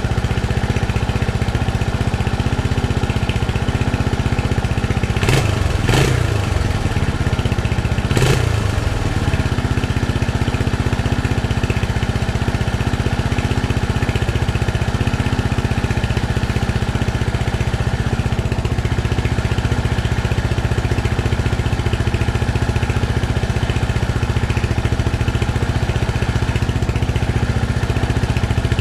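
1980 Honda XL250S's single-cylinder four-stroke engine idling steadily, with freshly replaced timing chain and tensioner and no chain rattle. Three short sharp clicks come about five, six and eight seconds in.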